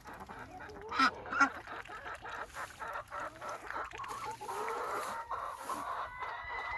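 Blue Star laying hens clucking: a run of short, rapid clucks with two louder calls about a second in and a longer drawn-out call near the end.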